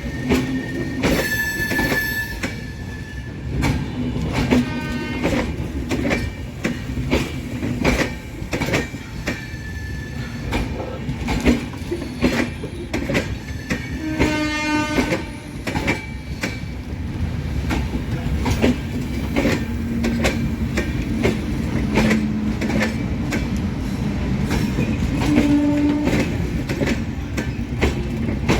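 Indian Railways express train running, its wheels clattering over rail joints in a steady run of clicks over a low rumble. A horn sounds briefly about a second in and again about halfway through.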